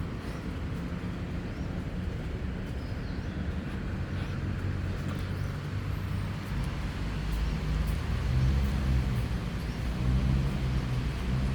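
Low engine rumble of a passing vehicle, growing louder about eight seconds in.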